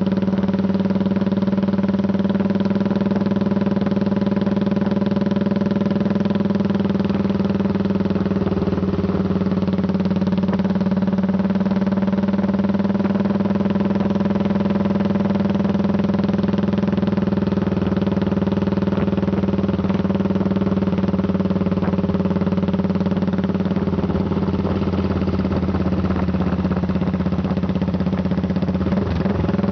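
Motorcycle engine running at a steady cruising speed, heard from on the moving bike, one constant engine note throughout. The pitch shifts briefly near the end.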